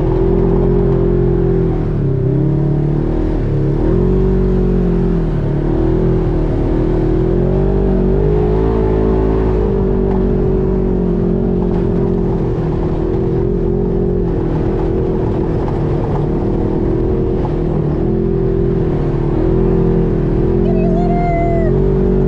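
UTV engine running steadily under throttle through soft sand, its pitch dipping and rising as the throttle eases and opens.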